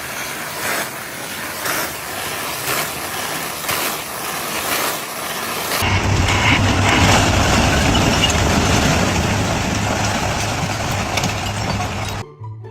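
Work-site noise with repeated knocks and clatter, then a cut about halfway through to a heavy engine running steadily with a low hum.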